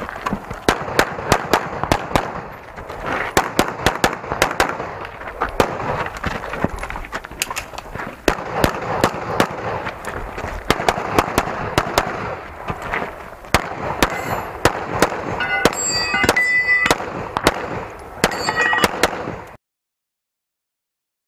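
Semi-automatic pistol fired in rapid strings during a practical-shooting stage run: dozens of sharp shots, many in quick pairs, with short gaps between strings while the shooter moves, stopping shortly before the end. A few high ringing tones come in among the later shots.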